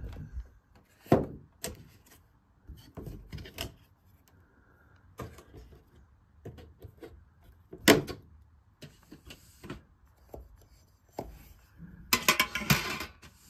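Handling noise while unpacking: irregular knocks, taps and rustles of a cardboard box and a metal paint-can tin. There is one sharp knock about eight seconds in, and a dense run of scraping and clattering near the end.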